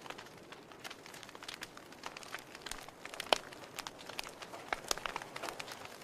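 Wood fire burning in a fireplace, crackling: irregular sharp pops and snaps over a soft steady hiss, the loudest pop about three seconds in.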